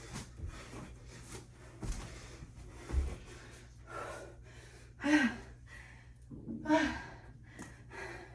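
A woman breathing hard and gasping from the exertion of burpees, with two loud voiced gasps falling in pitch about five and nearly seven seconds in. A few dull thumps in the first three seconds.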